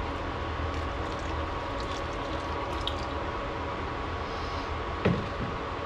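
Liquid dye pouring and trickling from a measuring cup into a stainless steel pan of wet yarn, over the steady hum and fan noise of electric cooktop burners. A single sharp knock comes about five seconds in.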